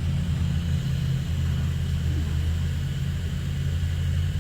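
Car engine idling, a steady low hum heard from inside the car, with one brief click right at the start.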